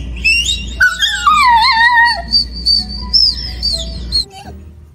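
A husky howling and whining in long, high, wavering notes that slide up and down, mostly downward. The notes stop abruptly a little after four seconds.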